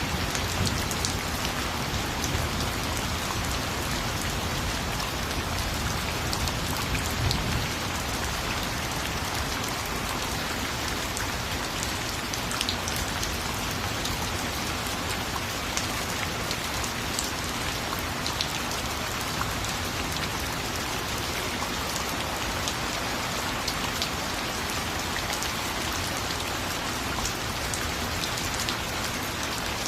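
Steady rain falling, a dense even hiss scattered with sharp ticks of individual drops striking close by.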